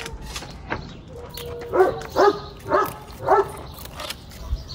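A dog barking: four short barks in a row, about half a second apart.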